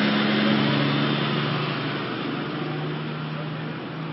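Heavy diesel engines of parked fire trucks running, a steady low hum that grows fainter over the last two seconds.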